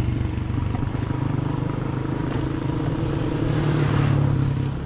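A vehicle engine running steadily, its pitch rising a little near the end.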